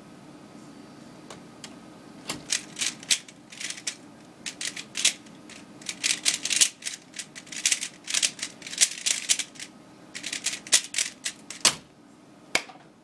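DaYan GuHong 3x3 speedcube being turned at speed through a full solve: rapid, irregular plastic clacking of the layers in flurries, starting about two seconds in and lasting about nine seconds. A single louder knock follows near the end.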